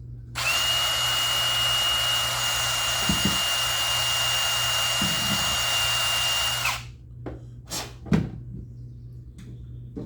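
Power drill running at a steady speed with a high, even whine for about six seconds as a small bit wallows out the hole in a key. It stops abruptly, followed by a few light knocks.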